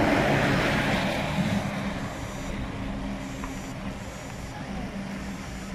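A Ford Transit ambulance van's engine running as it drives slowly past. The engine and road noise are loudest for the first couple of seconds, then settle to a steady low engine hum.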